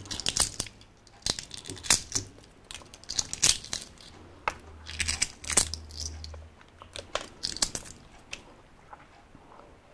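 Balut eggshell being cracked and peeled away by fingers, close to the microphone: a run of irregular sharp crackles and clicks.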